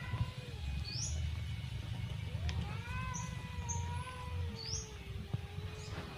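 A cat yowling: the end of one falling call at the start, then one long wavering call of about three and a half seconds, the drawn-out threat call of a cat squaring up to another for a fight. Small birds chirp a few times over it.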